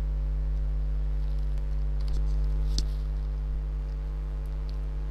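Steady low electrical mains hum with a buzz from the recording setup, with a few faint clicks near the middle.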